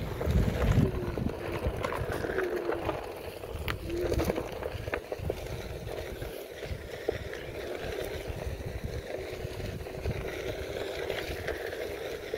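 Onewheel electric board riding over a dirt trail: a steady low rumble with a motor whine that rises and falls in pitch a few times in the first few seconds as the board speeds up and slows, and scattered clicks.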